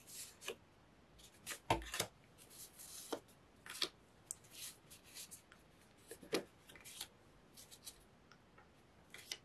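Stack of paper die-cuts and card pieces being leafed through by hand: faint, irregular rustles and slides of paper on paper, with a soft knock about two seconds in.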